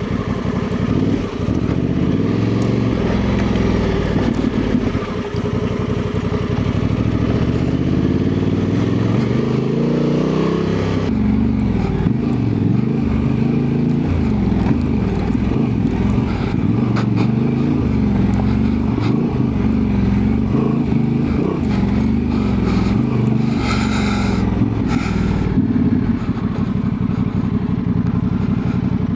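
Honda Transalp 750's parallel-twin engine running under load while the motorcycle is ridden off-road, its pitch rising and falling with the throttle.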